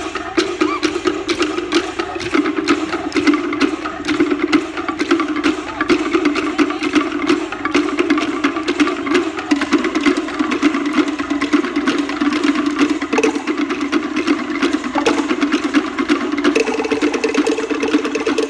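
Cook Islands drum ensemble playing wooden slit drums (pate): a fast, steady stream of sharp, ringing wooden strikes in interlocking rhythm. The pitch of the drumming shifts near the end.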